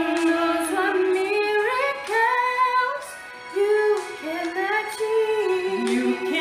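Mother and daughter singing together, a duet of women's voices holding and sliding between long notes, with a short break about three seconds in.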